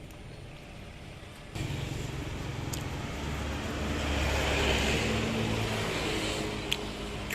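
A motor vehicle passing close by on the road, its engine and tyre noise building to a peak about halfway through and then fading. Two short clicks near the end.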